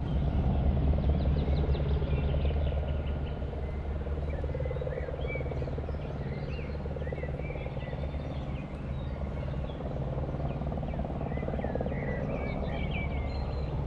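Outdoor ambience: many short bird chirps and calls over a steady low rumble.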